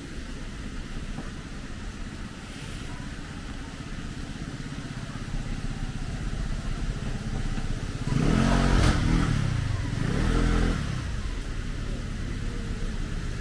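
A motor vehicle engine passing close by over a steady street background. It grows loud about eight seconds in, its pitch drops and then rises again, and it fades after about three seconds.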